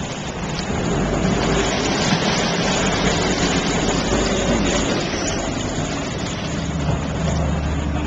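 Motorboat engines running close by with a low steady hum, over water churning in their wake.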